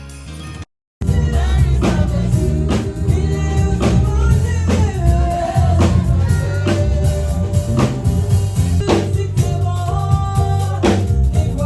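A song with a singing voice over a drum kit and backing instruments, with a steady beat. It starts abruptly about a second in, right after a brief cut to silence.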